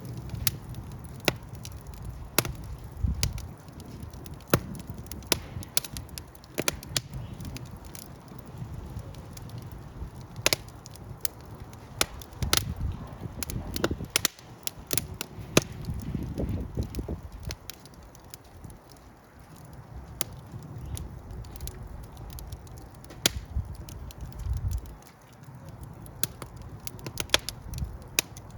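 Fire crackling: irregular sharp pops and snaps, a few of them loud, over a low rumble.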